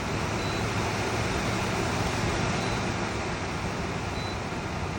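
Portable dehumidifier running with a steady fan rush and a constant low hum, its fan turned down to the low speed setting.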